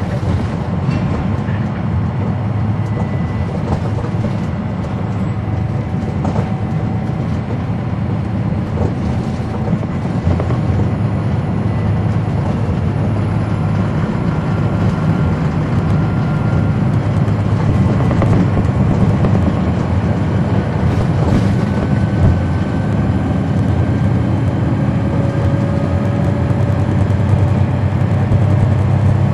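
Cummins ISL9 diesel engine of a NABI 40-foot suburban transit bus, heard from the back of the cabin while the bus is under way: a steady low drone that grows a little louder from about ten seconds in.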